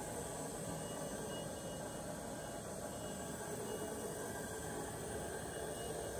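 Cincinnati universal tool and cutter grinder running steadily, a constant mechanical hum with hiss and no changes.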